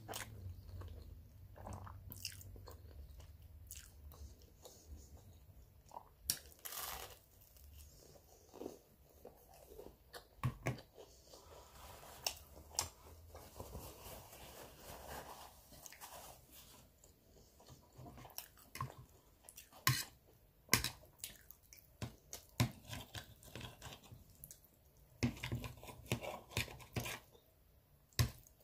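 Close-up eating sounds: a person slurping and chewing spaghetti with meat sauce and biting garlic bread, with irregular sharp mouth clicks and smacks.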